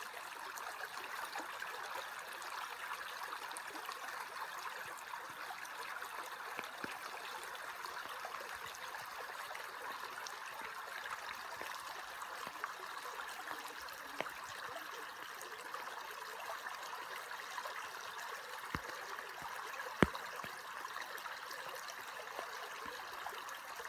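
Shallow creek water running over a gravel bed with a steady babble. A sharp knock sounds near the end.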